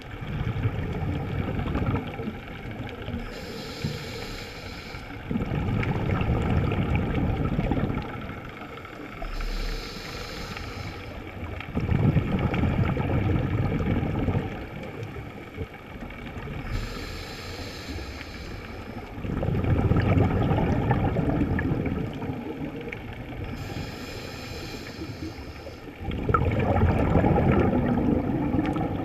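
A scuba diver breathing through a regulator underwater: a short hiss on each inhale, then a louder rumbling burst of exhaled bubbles, the cycle repeating about every six to seven seconds.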